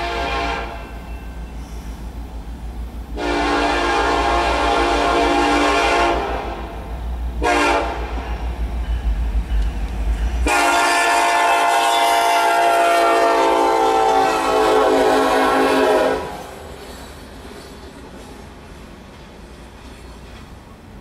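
Union Pacific freight locomotive's multi-note air horn sounding the grade-crossing signal: the end of a long blast, then a long blast, a short one and a final long blast lasting about five seconds. Afterwards the approaching train's lower steady rumble continues.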